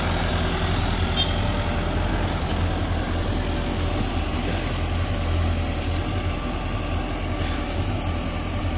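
Mahindra Novo 755 DI 4WD tractor's four-cylinder diesel engine running steadily under load while pulling a tined cultivator through the soil.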